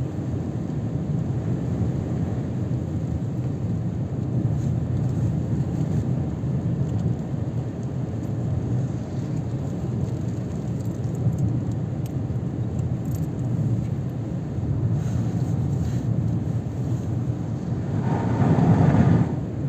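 Mazda 3 on the move, heard from inside the cabin: a steady low rumble of road and engine noise, swelling louder for about a second and a half near the end.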